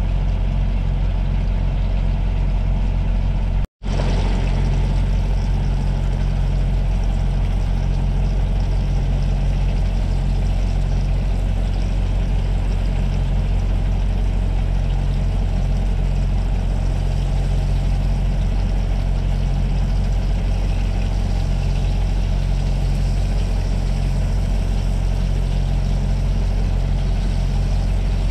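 Idling truck engine giving a steady low drone, with the sizzle of tuna steaks and bacon frying in a cast-iron skillet over it. The sound cuts out for an instant about four seconds in.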